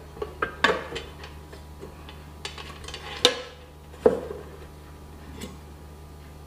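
Crisper plate of a Mito AF1 air fryer being pressed and seated into its nonstick basket: a few light clicks and knocks, with two sharper knocks a little after three seconds and about four seconds in.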